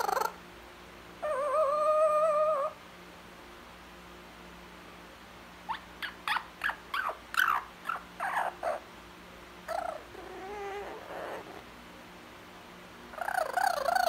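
Blue-fronted Amazon parrot vocalizing: a wavering whistled note about a second in, a quick run of about ten short sharp chirps in the middle, a soft low warble, then a loud warbling call starting near the end.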